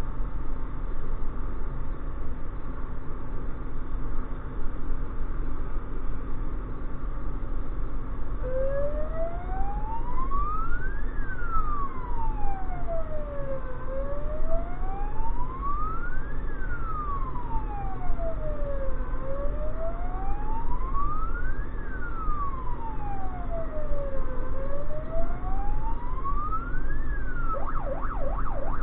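Siren heard from inside the truck cab over steady engine and road noise. From about a third of the way in, a slow wail rises and falls about every five seconds, and near the end it switches to a fast warble.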